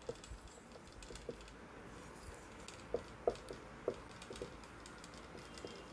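Marker pen writing on a whiteboard: faint, irregular taps and short squeaks of the felt tip as letters and lines are drawn.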